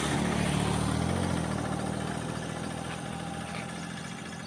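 A motor vehicle's engine running, its low hum fading steadily as it moves away.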